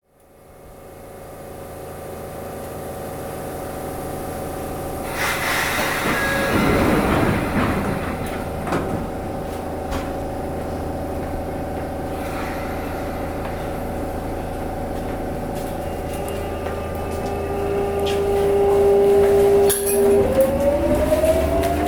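Sotetsu 8000 series electric train standing at the platform with its onboard equipment humming steadily, then a hiss of air and a thud between about five and nine seconds in as the doors close. From about 17 seconds in, the GTO-thyristor VVVF inverter sounds a steady whine, then several rising tones about twenty seconds in as the train starts to pull away.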